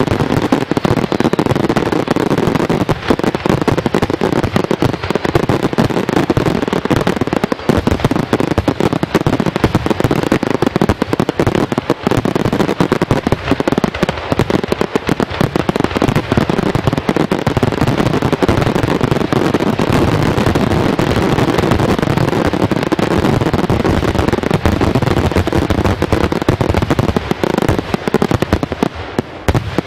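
Fireworks display: a dense, continuous barrage of rapid bangs and crackling with no pauses, easing off slightly near the end.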